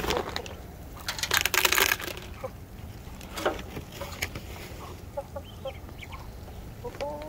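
Hens clucking softly while feeding, with a short burst of scratchy noise about a second in and a few brief calls near the end.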